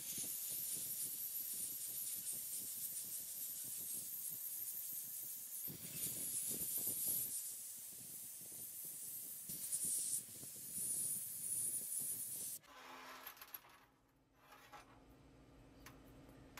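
Sandblasting gun hissing steadily as it blasts rust off a steel sword blade, then cutting off suddenly about 12 seconds in, leaving a low hum and a few faint clicks.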